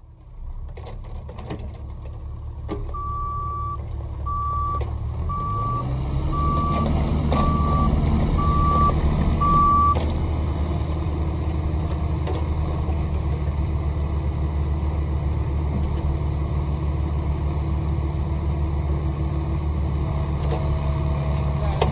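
An excavator's diesel engine revs up over the first several seconds, rising in pitch, then runs steadily. A warning alarm beeps seven times at an even pace while the engine climbs.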